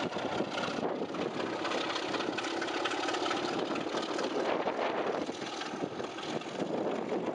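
Class 33 diesel locomotive passing under power at the head of a passenger train, its Sulzer engine working steadily with the coaches rolling behind.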